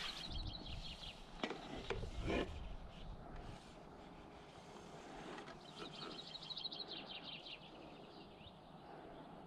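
A small songbird singing two quick trills of rapidly repeated high notes, one at the start and one a little past halfway, over a low steady rumble of wind. A few sharp knocks come about two seconds in.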